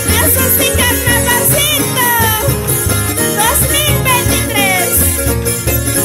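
Andean carnival music from Norte Potosí: strummed charangos and guitar over a steady beat, with high sliding vocal notes through the first few seconds.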